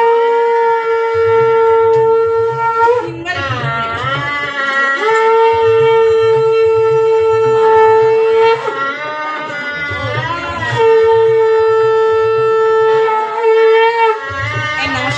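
Shehnai music: the double-reed horn holds three long, steady notes, with ornamented slides between them, over a hand-drum rhythm.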